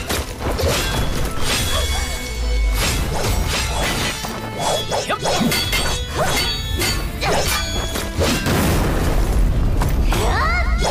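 Dramatic background music over a series of sharp impacts, crashes and shattering effects from a magic battle.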